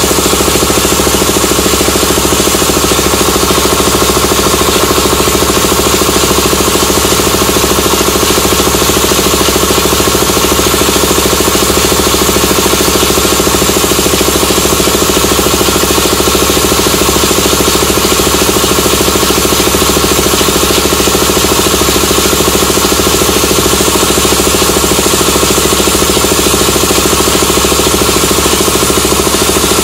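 Gihon portable piston air compressor running under power, the electric motor and pump giving a loud, steady mechanical clatter and hum.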